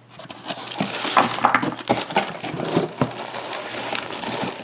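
Packing paper rustling and crinkling as hands dig through a box, with small clicks and knocks mixed in.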